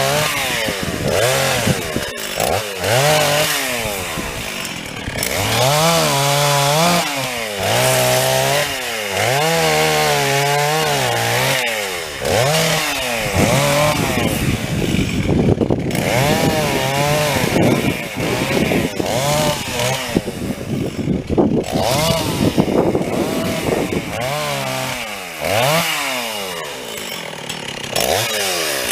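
Two-stroke chainsaw cutting into a storm-downed tree trunk, its engine pitch rising and dropping repeatedly as the throttle is worked and the chain bites into the wood.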